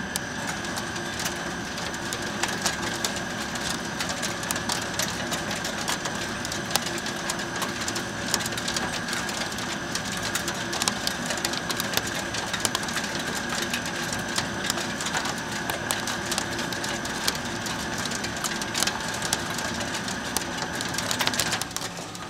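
Doosan CNC turning centre cutting a metal workpiece under coolant spray: a steady whine with dense crackling from the cut and chips, the whine stopping about a second before the end.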